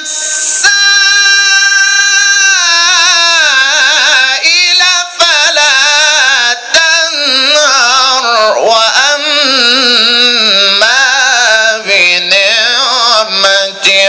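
A male reciter chanting the Qur'an in melodic tajwid style, amplified through a microphone: a long held note about a second in, then a run of wavering, ornamented melismas broken by brief pauses.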